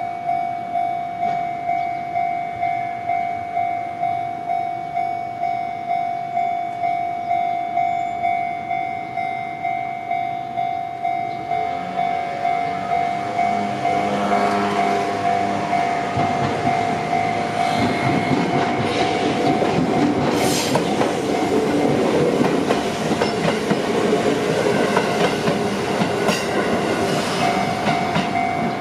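Japanese level-crossing warning bell ringing steadily, about three strokes every two seconds. From about halfway through, a train on the JR Central Gotemba Line comes up and runs past over the crossing for some ten seconds, its rumble and wheel clatter covering the bell, before the bell is heard clearly again near the end.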